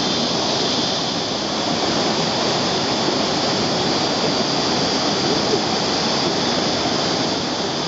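Steady rush of whitewater pouring through a shallow boulder rapid on a river.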